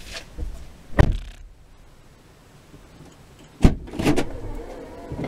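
Knocks and clunks inside a car cabin. There is a sharp knock about a second in, then a quiet stretch, then a louder thump followed by a cluster of smaller knocks and rattles, like a camera mount or interior parts being handled.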